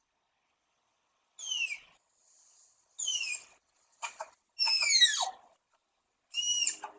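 An animal's high-pitched squealing calls, each sliding down in pitch, in about five short bouts with silences between, growing louder toward the end.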